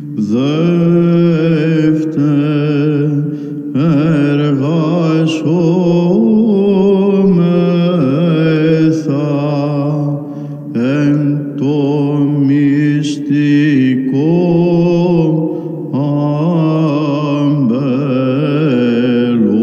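Byzantine chant: voices singing a slow, ornamented melody over a steadily held drone note (the ison).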